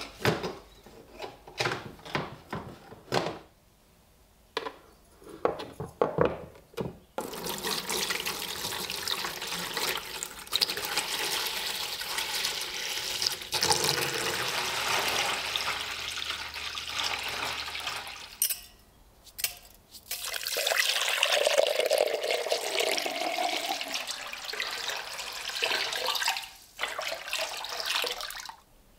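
Water poured from a jug into a plastic tub, splashing over a rusty bayonet as an electrolysis rust-removal bath is filled, in two long pours with a short break between them. Before the pouring there is a string of light clicks and knocks as metal plates and wire are set against the plastic tub.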